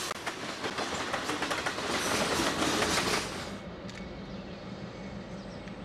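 Freight cars rolling past, their wheels clicking over rail joints. About three and a half seconds in this cuts off suddenly to a quieter, steady low hum.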